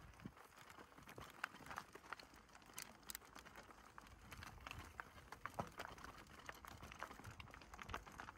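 Faint, irregular clicking and crunching, several clicks a second, from a bicycle travelling along a path.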